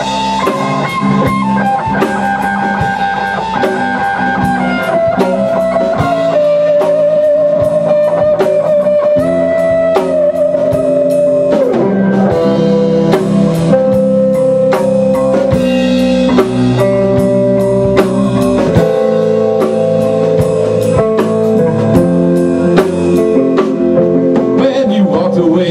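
Rock band playing an instrumental passage: an electric lead guitar plays long held, vibrato-laden notes that step down and up in pitch, over rhythm guitar and a drum kit keeping time with steady cymbal strokes.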